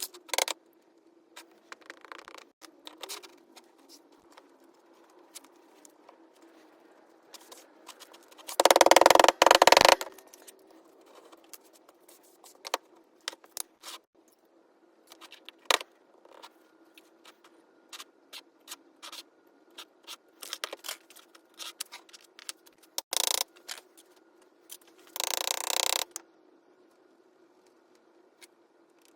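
Handling noises: scattered small clicks and scrapes, with two louder scraping rustles of about a second each, over a faint steady hum.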